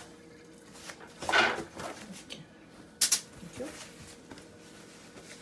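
Kitchen handling noises over a faint steady hum: a short rustle about a second in and a single sharp click or knock about three seconds in.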